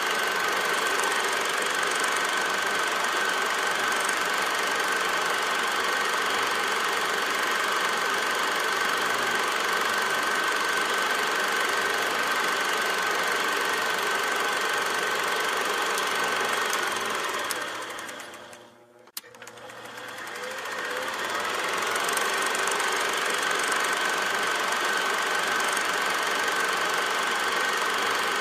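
Film projector running: a steady mechanical whir and clatter with a steady high whine. About two-thirds of the way through it fades out, gives a single click, and fades back up a few seconds later.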